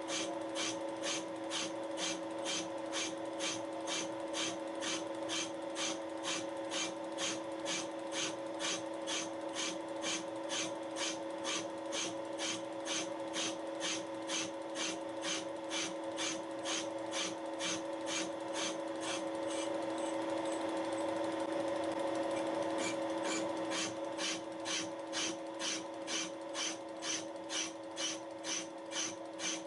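Milling machine running with a Wohlhaupter UPA 5 boring and facing head, its single high-speed steel tool taking a light facing cut. A steady motor and gear hum sits under a rhythmic scraping pulse, about two and a half a second. The pulses merge into a louder continuous rasp for a few seconds after the middle, then separate again.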